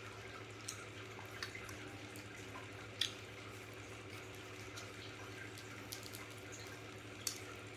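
Faint steady background hum with a few soft, sharp clicks or taps scattered through, the clearest about three seconds in and another near the end.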